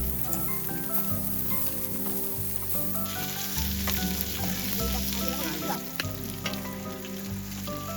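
Food frying and sizzling on a hot cooking surface, a steady crackling hiss with small pops.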